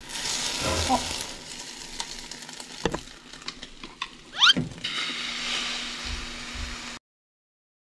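Egg for a rolled omelette sizzling in a hot frying pan, with a few knocks of the spatula and chopsticks on the pan. About four and a half seconds in, a short rising squeak is followed by a fresh, steady sizzle as more beaten egg is poured into the pan. The sound cuts off suddenly near the end.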